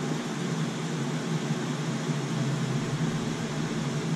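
Steady hiss with a low hum from a pot of sauce simmering on a gas stove.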